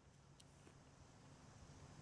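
Near silence between shots, with two faint clicks about half a second in.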